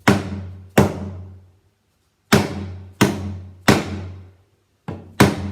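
A wooden spoon striking an empty plastic gallon water jug: about six hollow, drum-like thunks in small groups, each with a low ring that dies away.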